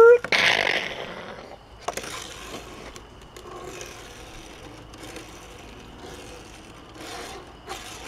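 Die-cast toy car's small wheels rolling and skidding across a wooden tabletop as it is flicked by hand into a drift. It starts with a loud scraping whirr in the first second, then fainter rolling with a few light knocks.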